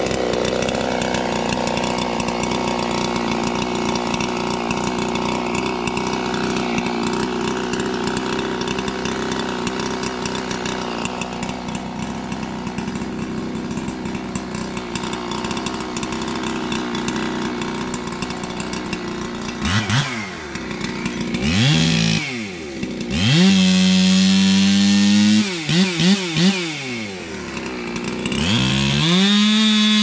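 Ported big-bore Husqvarna 372XP two-stroke chainsaw idling steadily. From about twenty seconds in it revs up and down several times, with a held full-throttle run of about two seconds, a few quick blips, and another full-throttle run near the end.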